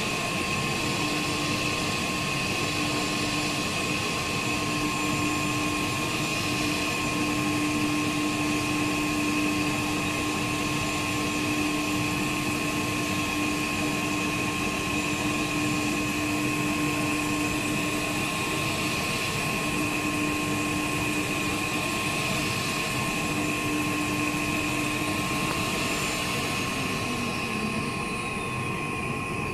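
YN1325 three-head pneumatic CNC router running: the electric spindles whine steadily over a constant machining noise as a bit routes a wood board. Near the end one whine slides down in pitch as a spindle slows.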